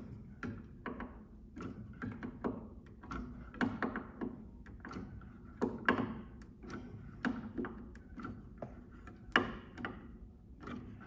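Screwdriver clicking and tapping on the hammer flange screws of an upright piano action as the screws are tightened one after another: irregular small clicks, a few a second, with a sharper tap now and then.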